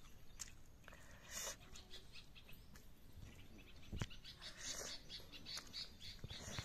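Faint bird chirps with soft, scattered sounds of a person eating rice and fish curry by hand, and a single soft thump about four seconds in.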